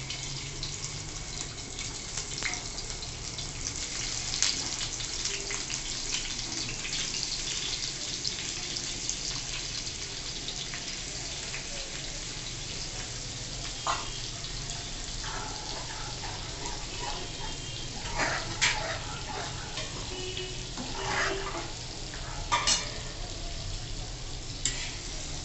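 Paneer pieces frying gently on low heat in homemade ghee, a steady soft sizzle with small crackles, and a few clicks as a spatula stirs and turns them.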